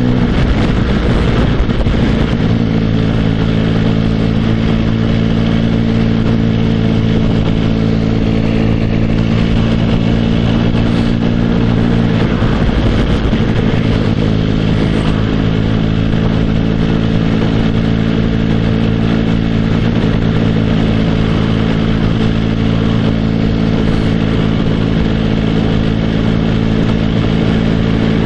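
The three-cylinder engine of a Benelli TnT 1130 Cafe Racer running steadily at road speed, heard from the rider's position. Its even note wavers briefly about a second in and again around twelve seconds in.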